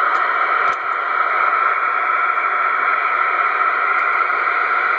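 Receiver static: a steady, loud hiss from a CB monitor radio's speaker on FM, heard between test transmissions, that starts abruptly and carries through, with one faint click under a second in.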